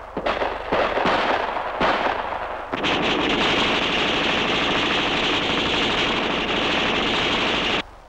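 Gunfire in a jungle firefight: a few separate shots and short bursts, then a long stretch of continuous automatic fire that cuts off suddenly near the end.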